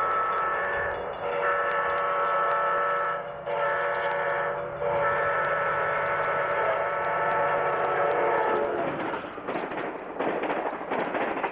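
Locomotive air horn sounding the grade-crossing signal: the tail of a long blast, then a long, a short and a final long blast as the train approaches the crossing. The train then goes by with rumbling and rapid clattering of wheels over the rails.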